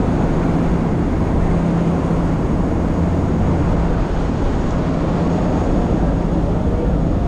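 A whale-watching boat's engine running steadily under way: a constant low drone under a loud rush of wind and water.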